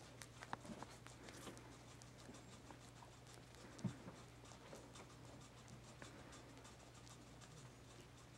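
Near silence: room tone with a steady low hum, faint scattered ticks and soft rustles, and one brief soft thump about four seconds in.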